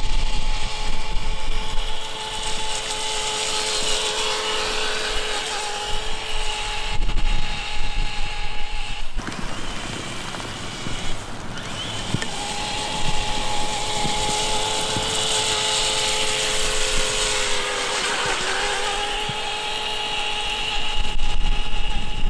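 Electric whine of an RC truck's HobbyWing XeRun sensored brushless motor and gear drivetrain as the truck drives. The steady whine cuts out for about three seconds in the middle, then resumes and dips briefly in pitch near the end as the truck slows and speeds up again.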